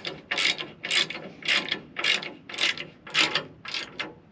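Hand ratchet wrench clicking in about nine short back-and-forth strokes, roughly two a second, as it runs a bolt in to mount a new door latch on a steel door.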